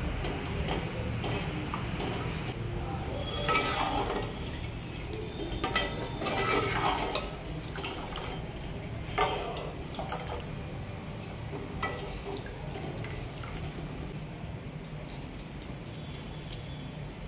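Plastic spatula stirring thick curry gravy in an aluminium pot, with several scraping clatters against the pot's side and a few clicks, over a steady low hum.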